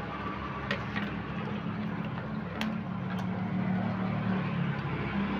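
Steady low hum and background noise, with a few faint clicks as an audio cable is handled and plugged into a mixer rig.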